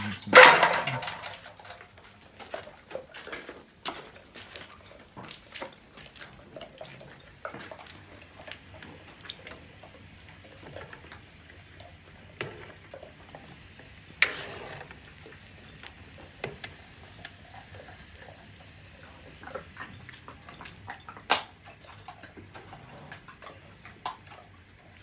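Dogo Argentino dogs gnawing on bones: scattered irregular cracks and clicks, with a loud clatter at the start and two sharper knocks later.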